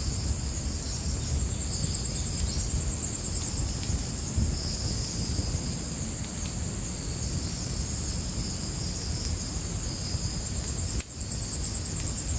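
Fire burning with a low rumble and sparse faint crackles, under crickets chirping in a steady high trill. The sound briefly drops out about eleven seconds in.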